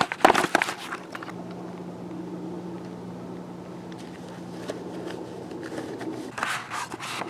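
Rustling and knocking of a camera being handled and set down, then a faint steady low hum that fades out about three-quarters of the way through, with a little more handling noise near the end.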